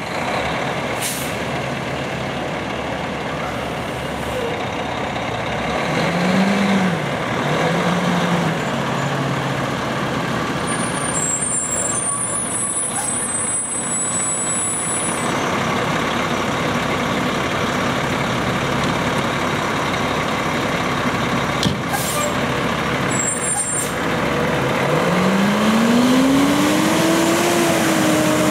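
Spartan Gladiator fire engine's diesel engine running as the truck moves off, responding without a siren, with short hisses of its air brakes. Near the end the engine note climbs steadily as it accelerates.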